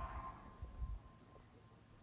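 Near silence in a pause of a broadcast alert message: a faint low hum in the first second that fades out, leaving only faint background noise.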